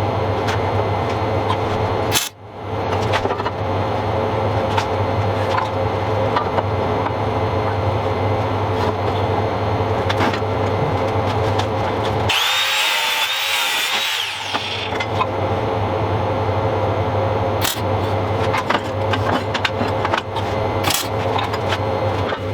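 Steady mechanical whir with a low hum, like a small motor or power tool running, with a short dip about two seconds in. About two-thirds of the way through, a wavering high whine takes over for a couple of seconds.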